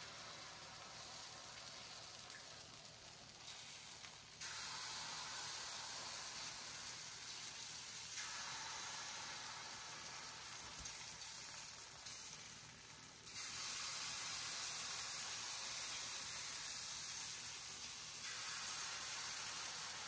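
Pancake batter sizzling on a hot griddle, a steady hiss that steps up in level several times as each new pancake is poured on.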